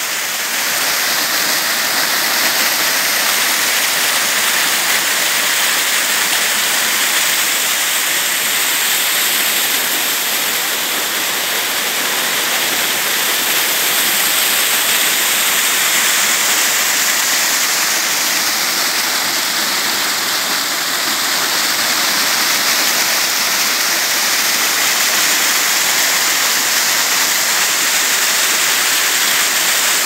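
Small waterfall pouring over rocks, its water rushing steadily and loudly.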